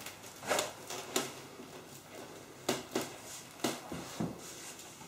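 Several light knocks, clicks and rustles, scattered unevenly, from someone moving about and handling the sides of a wooden whelping box as she reaches in among the puppies.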